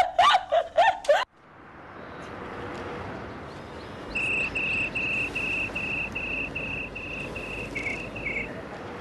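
A cricket chirping, an even run of short high chirps at one steady pitch, about three a second, starting a few seconds in over a faint steady background hiss.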